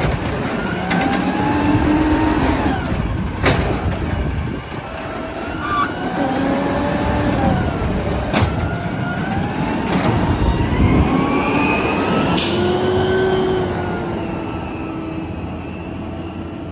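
Peterbilt 320 automated side-loader garbage truck working its lift arm: the engine revs and the hydraulics whine, rising and falling in pitch, with a few sharp knocks of the cart and arm. A short hiss comes about twelve seconds in, and the truck grows fainter near the end as it pulls away.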